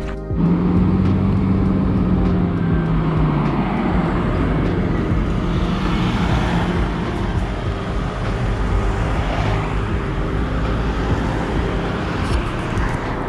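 Road traffic: cars and a pickup truck driving past close by, their engine and tyre noise swelling and fading in turn. A low engine drone eases down in pitch over the first three seconds or so.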